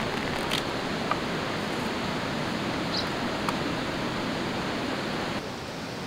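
Steady rushing of a river flowing over rocks, with a few faint clicks. The rushing drops lower shortly before the end.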